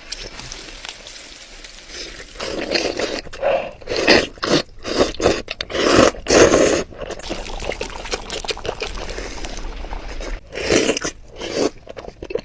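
Close-miked chewing and crunching of food in the mouth, in irregular bursts that begin about two seconds in.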